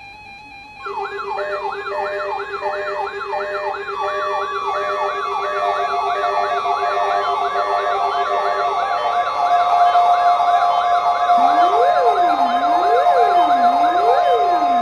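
Several sirens sounding at once, starting just under a second in: layered fast up-and-down sweeps with steady tones underneath, and a slower rising and falling wail coming in about three-quarters of the way through. The whole sound grows louder as it goes.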